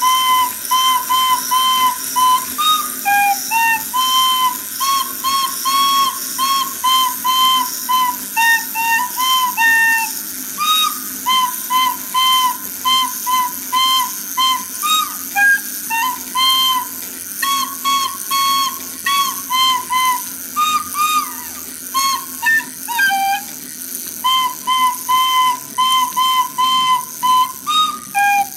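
A whistled melody of short notes, many repeated on the same pitch, with small slides between some notes, over a steady faint hiss.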